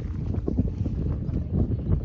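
Campfire burning, with irregular crackles and pops over a low, steady rumble.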